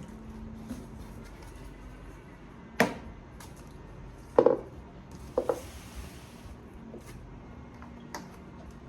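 A few sharp knocks and clatters of objects being handled and set down on a hard surface, the loudest a double knock about four and a half seconds in, with a short hiss just after five seconds.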